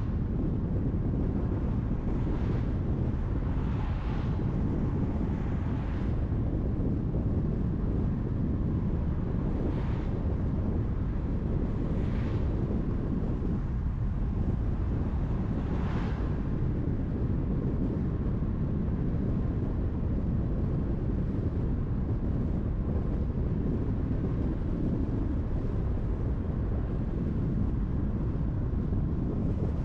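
Steady road and wind noise of a car driving on a highway: a constant low rumble with a hiss over it. A few brief hissing swells come about 2, 4, 10, 12 and 16 seconds in.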